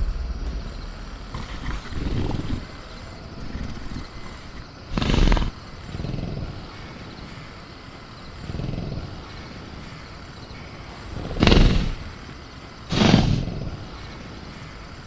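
Sound-designed velociraptor ambience: a caged raptor making soft low growls, with three short, loud bursts of the animal agitated in its cage, over a steady bed of night jungle ambience with crickets.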